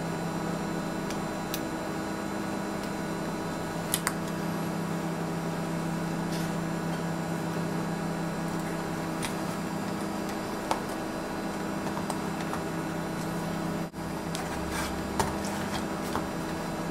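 Steady low background hum, with a few faint clicks and taps as a small circuit board and its multi-pin connector are handled and pressed into place on the main board. The hum briefly drops out about 14 seconds in.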